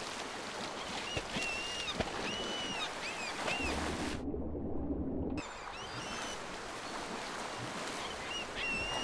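Shallow river water rushing and splashing around a wading brown bear, with gulls calling repeatedly in short, arched cries. About four seconds in, the sound drops for about a second to a muffled low hum heard under water, then the river and gulls return.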